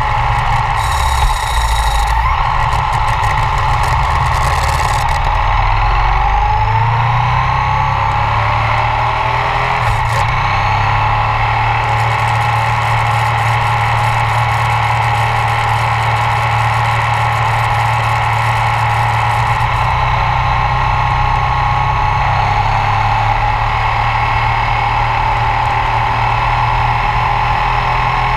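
Ducati ST4s V-twin engine running under way, with wind rushing over the low-mounted microphone. The engine pitch climbs between about five and ten seconds in as the bike accelerates, then holds steady at cruising speed.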